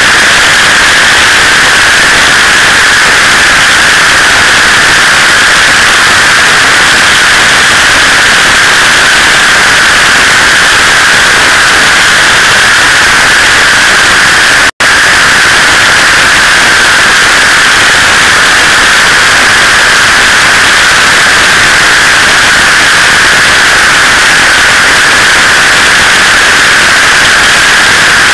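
Steady, loud rushing hiss of wind noise on a motorcycle-mounted camera at highway speed, with no engine note coming through. The sound cuts out for an instant about halfway through.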